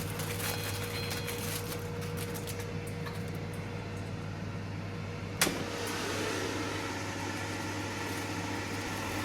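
Philips Airfryer XXL running, its fan giving a steady low hum, with one sharp click about five and a half seconds in.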